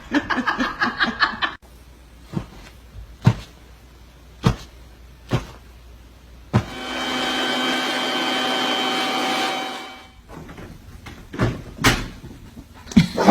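A person chuckles briefly at the start, then there are scattered knocks. An electric appliance motor runs with a steady whine for about three and a half seconds in the middle, starting and stopping abruptly.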